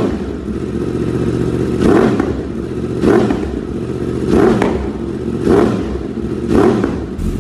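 Kawasaki Z1000 inline-four engine running through an aftermarket Akrapovic slip-on muffler, the throttle blipped in short revs about once a second over a steady idle.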